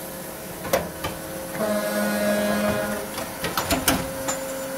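Tsune TK5C-50GL CNC bar saw running its automatic cycle: a steady hum, a whirring drive for about a second and a half in the middle, and sharp mechanical clicks about a second in and again near the end.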